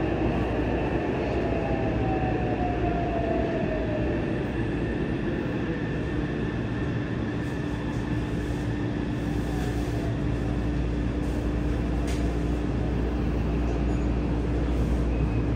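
Inside a Yokohama Blue Line 3000S subway car: running noise of the train on the rails, with the whine of its Mitsubishi IGBT-VVVF traction inverter falling in pitch in the first few seconds, then a steady hum. The falling whine fits the train braking as it pulls into the station.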